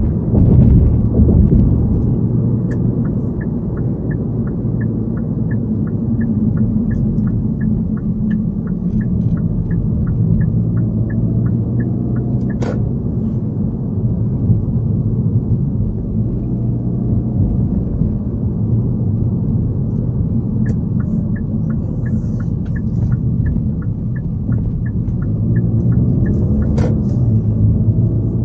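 Car cabin noise while driving: a steady low rumble of engine and tyres. Over it a turn indicator ticks about two times a second, in two runs of several seconds, each ending with a sharper click.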